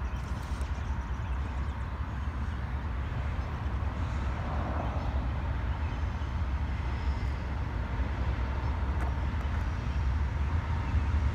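Diesel locomotive of an approaching Union Pacific intermodal train, a steady low rumble that grows gradually louder toward the end.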